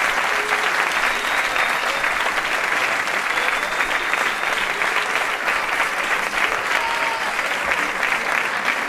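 Audience applauding: dense, steady clapping from a large crowd of many hands.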